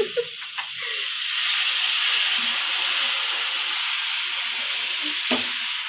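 Water poured into a hot non-stick pan of fried onions and masala, hissing and sizzling as it turns to steam; the hiss swells after about a second and then holds steady. A short knock comes near the end.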